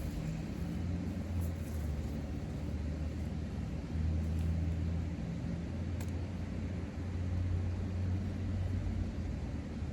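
Steady low rumble of an engine running, wavering slightly in strength.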